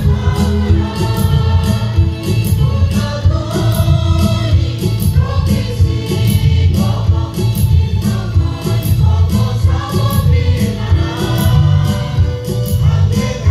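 A mixed choir of men and women singing a gospel song through microphones and loudspeakers, over backing music with a steady beat and heavy bass.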